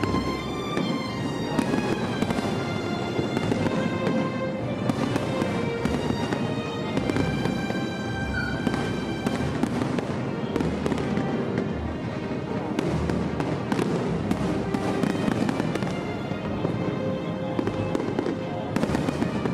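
Fireworks display: a dense stream of bangs and crackles, with music playing along.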